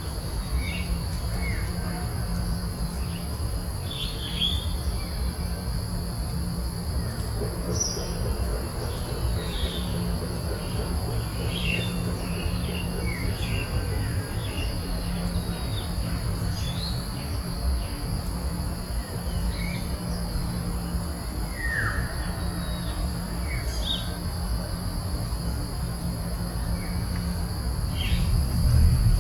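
Steady high-pitched insect drone with short bird chirps scattered throughout, over a low rumble.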